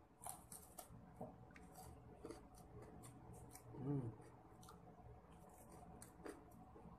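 Faint crunching and chewing of a coconut-coated chocolate ball with a crisp cracker centre and creamy filling: many small irregular crunches and clicks, with a short closed-mouth hum about four seconds in.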